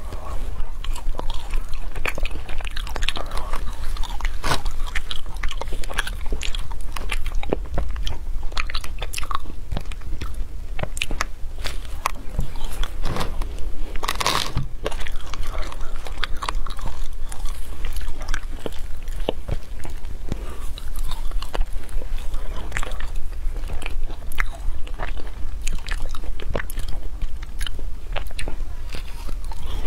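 Close-miked crunching and chewing of frozen matcha ice, many sharp cracks as the ice breaks between the teeth. The loudest crunch comes about halfway through.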